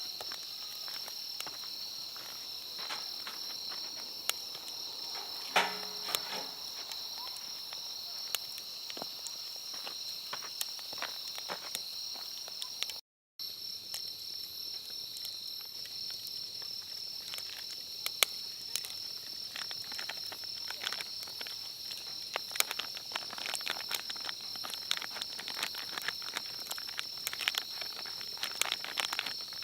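A steady, high insect chorus, with scattered small clicks and taps over it and one louder knock about five seconds in. The sound drops out for a moment about thirteen seconds in.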